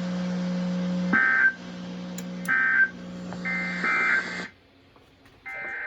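Emergency Alert System SAME data tones: three short buzzing bursts about a second apart, the end-of-message code that closes a weather radio alert, over a steady low hum. The hum and audio then cut out, and another data burst begins near the end.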